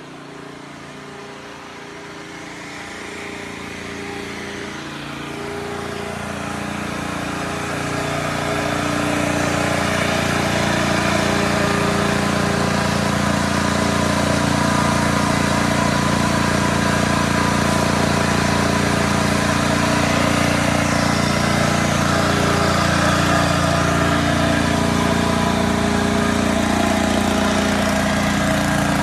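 An engine running steadily with an even hum, growing louder over the first eight or nine seconds and then holding level.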